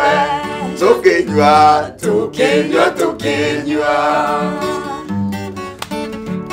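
A man sings with his own acoustic guitar strummed along. His voice carries long, wavering notes for the first four seconds or so, and near the end the strummed guitar goes on alone.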